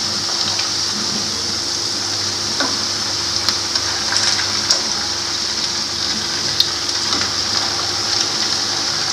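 Shredded potato snacks frying in hot oil in a pan: a steady sizzle dotted with small pops and crackles.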